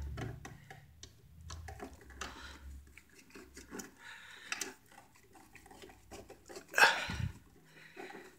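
Screwdriver turning the brass terminal screws of an electrical receptacle: small scattered metal clicks and scrapes as the screws are tightened and the wires handled, with one louder scrape near the end.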